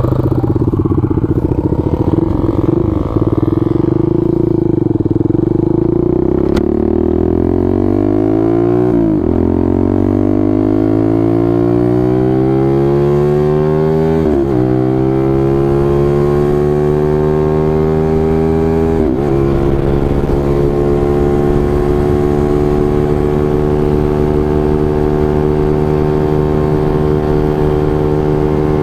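Benelli 150S motorcycle's single-cylinder engine pulling hard through the gears, its pitch climbing and dropping back at three upshifts over the first twenty seconds or so, then holding a steady pitch at cruising speed.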